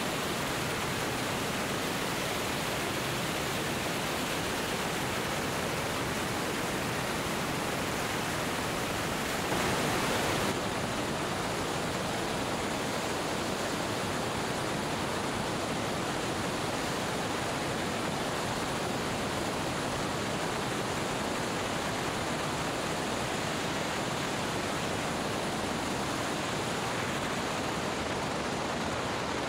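Steady rush of wind noise from airflow over a camera mounted under a Cessna 205's fuselage during a touch-and-go, briefly louder about ten seconds in.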